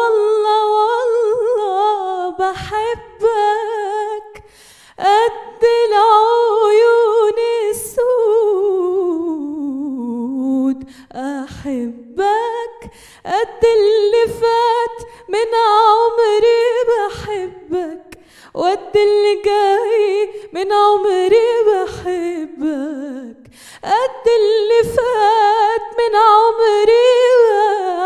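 A woman singing solo into a handheld microphone with no accompaniment, in long held phrases with vibrato and short breaths between them. About ten seconds in the melody slides down low before climbing again.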